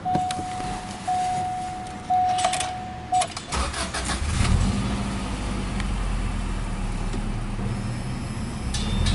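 An electronic warning tone sounds in broken stretches, with a few clicks, then about three and a half seconds in the Subaru Impreza WRX STI Version 4's turbocharged flat-four (boxer) engine cranks and fires. It settles into a steady idle at around 1,100 rpm.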